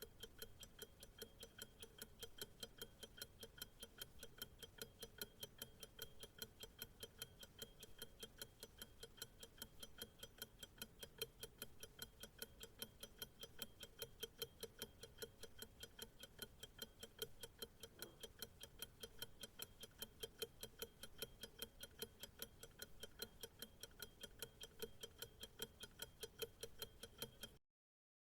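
Clock ticking in a fast, even rhythm, then cutting off suddenly near the end.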